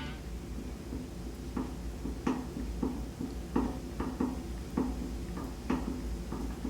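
Secretlab Omega 2020 gaming chair creaking: about ten short creaks at uneven intervals as the seated weight shifts. This is a creak the chair has developed after two months of use.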